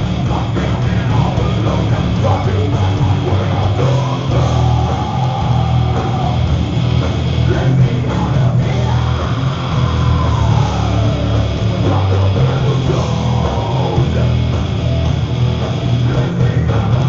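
Live heavy metal band playing loud: distorted electric guitars with a vocalist singing into a microphone.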